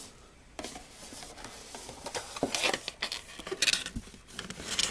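Paper sheets from a model kit box being handled and shuffled, rustling in irregular bursts, louder in the second half.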